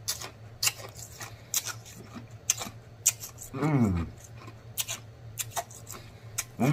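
Close-miked mouth sounds of a person chewing with closed lips: lip smacks and wet clicks, with a short falling moan about three and a half seconds in and another starting near the end.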